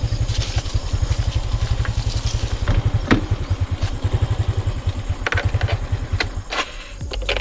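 Moped engine idling with a fast, even putter, with a few sharp clicks and knocks over it; the engine sound dips near the end.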